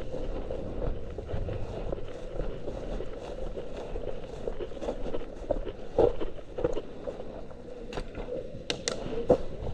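Footsteps and gear rustling as an airsoft player moves during a game, with several sharp clicks about eight to nine and a half seconds in.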